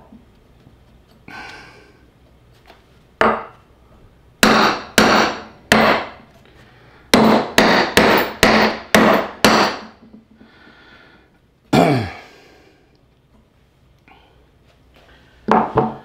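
Hammer blows fastening a metal star onto a wooden sign: a few sharp single strikes, then a quick run of about seven in the middle, one more, and a last pair near the end.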